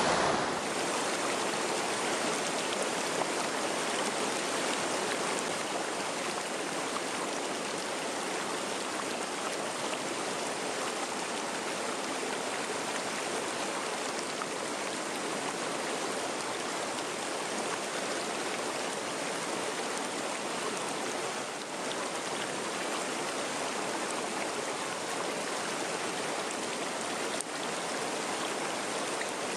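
Mountain stream flowing fast over rocks and shallow riffles: a steady, even rush of water.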